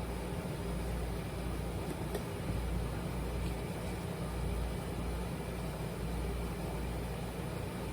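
Steady whirring hum with an even hiss, like a fan or kitchen appliance running, with a few faint clicks over it.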